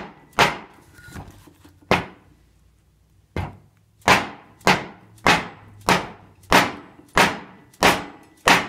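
Mallet blows driving a hardened steel stator shaft into the aluminium front pump body of a 200-4R automatic transmission. Two spaced strikes, a short pause, then a steady run of about nine sharp strikes, roughly one and a half a second, each ringing briefly.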